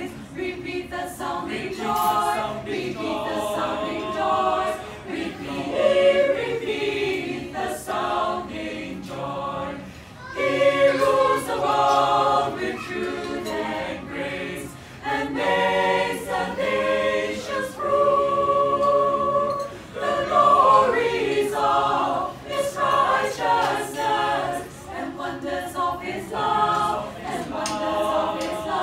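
A small mixed choir of men's and women's voices singing a Christmas carol a cappella.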